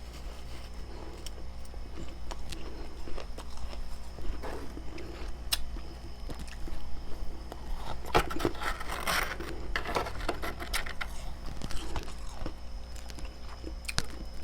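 Freezer frost being bitten and chewed: scattered crisp crunches, with a denser run of crunching about eight to ten seconds in.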